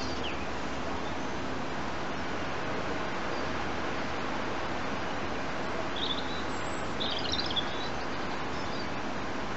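Steady outdoor background hiss with a few short, high bird chirps, once about six seconds in and again in a short cluster about a second later.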